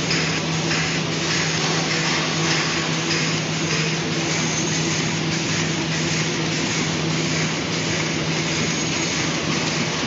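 Automatic tableware packing machine running steadily: a constant motor hum under a light, regular clatter of the feed and wrapping mechanism, about twice a second, in step with the machine cycling pack after pack.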